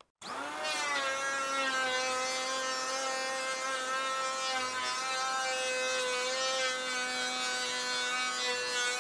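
Bosch GHO 26-82 D electric hand planer starting about a quarter second in, its motor whine rising quickly to speed and then holding steady while the cutter drum shaves a 2 mm pass along a wooden door's edge.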